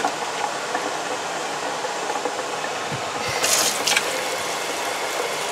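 Kitchen faucet running a steady stream of water onto freshly blanched pears in a speckled enamel pot in the sink, cooling them to stop the cooking; a brief louder splash comes about three and a half seconds in.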